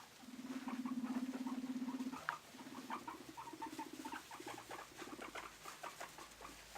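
Guinea pig rumbling: one low, vibrating rumble about two seconds long, followed by a run of shorter rumbles. Small pattering and rustling of paws in the bedding runs underneath.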